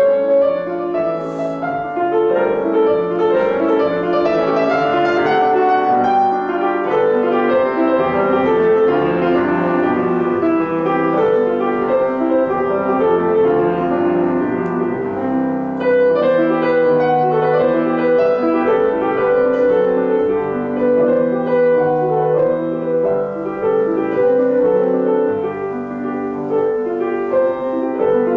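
Classical chamber music played by a piano quartet: piano with strings, the strings holding long sustained notes over a steady flow of piano notes.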